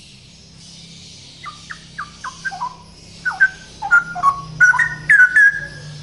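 Male straw-headed bulbul (cucak rowo) singing: from about a second and a half in, a run of short, clear whistled notes falling in pitch, growing louder and quicker into a rich, loud phrase that ends on a held note.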